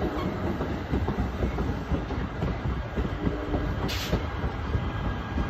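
NJ Transit bilevel commuter coaches rolling past on departure, their wheels rumbling steadily with scattered clicks and knocks over the rail. A short hiss comes about four seconds in.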